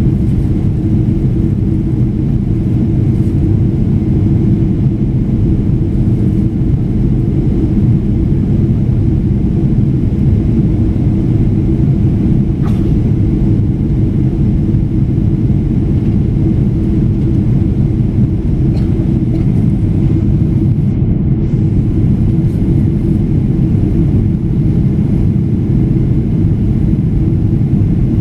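Steady low rumble of jet engine and airflow noise inside an airliner's passenger cabin in flight.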